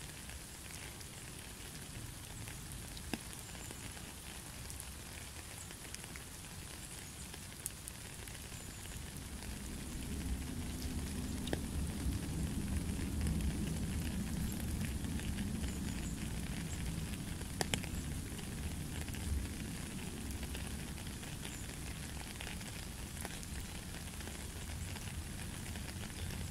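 Rain falling on a puddle and gravel path: a steady patter with scattered sharp drip ticks. A low rumble swells about ten seconds in and stays under the rain.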